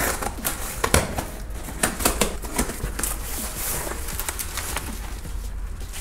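A cardboard shipping box being opened by hand: tape and cardboard flaps crackling and ripping. Then foam packing peanuts and bubble wrap rustle as a wrapped item is lifted out. The result is a run of sharp crackles and scrapes.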